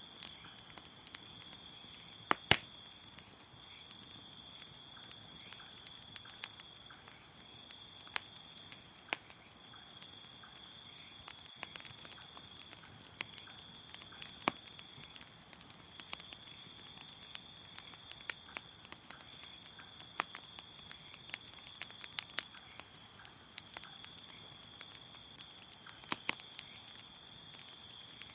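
Crickets chirping in a steady chorus over a crackling campfire, with scattered sharp pops, the loudest about two and a half seconds in.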